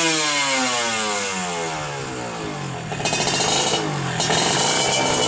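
Kawasaki Ninja 150 two-stroke drag-bike engine, with an expansion-chamber exhaust, being revved while stationary on its first tuning run. The revs fall away slowly over the first three seconds, then the throttle is blipped sharply about three seconds in and again about a second later.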